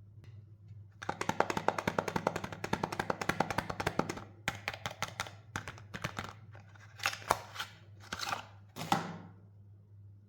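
Soap packaging being unwrapped and handled: a run of rapid, dense crinkling crackles for about three seconds, then a few separate crackles and three short rustles.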